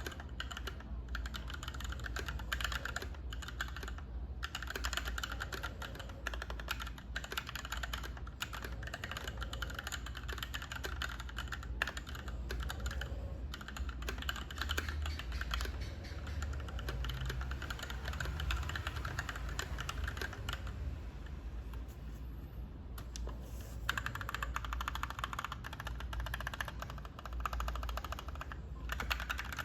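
Continuous fast typing on a GK64X 64-key mechanical keyboard with stock Gateron KS-3 Yellow linear switches, in a polycarbonate case with a fibreglass plate and DSA keycaps. The key clicks thin out briefly about two-thirds of the way through, then pick up again.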